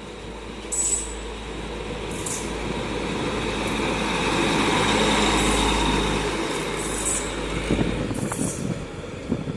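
A train running past, its rumble building to a peak about halfway through and then fading. Short hissing bursts come at intervals, and rapid clacks follow near the end.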